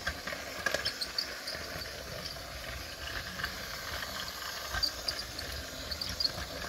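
Two 2009 Mattel TrackMaster battery-powered toy engines running together on a loop of plastic track: a steady small-motor whir with scattered light clicks.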